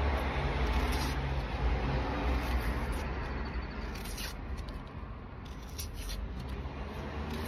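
Small kitchen knife scraping and cutting in short strokes as a vegetable is peeled by hand, over a low steady engine rumble.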